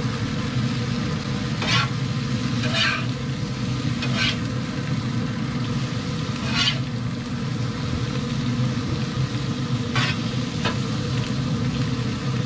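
Food sizzling on a pellet grill's grate, with several short scrapes of a metal spatula against the grate as patties are turned, over a steady low hum.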